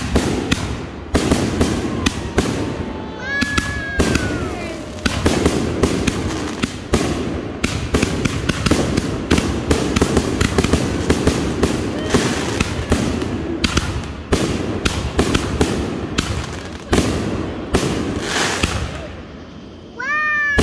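Consumer aerial fireworks going off in quick succession: a dense string of sharp bangs and crackling bursts, often several a second.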